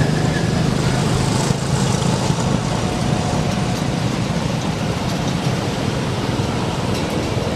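Steady low rumble of road traffic, motorbike engines included.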